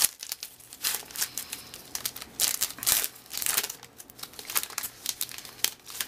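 Plastic wrapper of a 2012 Bowman baseball card rack pack crinkling as it is handled and opened by hand: a run of irregular crackles, densest about two and a half to three and a half seconds in.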